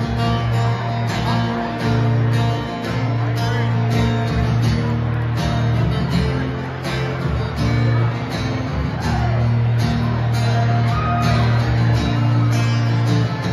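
Live band playing a song's instrumental intro: strummed acoustic guitar with electric guitar, a sustained bass line and drums keeping a steady beat.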